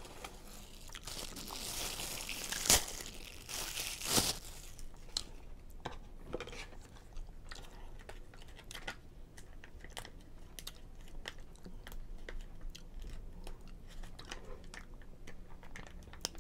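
Packaging crinkling as a plastic salad dressing packet is handled and torn open, with crunchy chewing clicks scattered throughout. The crinkling is loudest in the first few seconds and has two sharp snaps.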